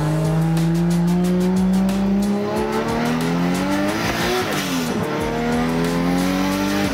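Nissan Skyline GT-R R33's twin-turbo RB26 straight-six pulling hard under acceleration. The pitch climbs, falls sharply at an upshift about four and a half seconds in, and climbs again before cutting off.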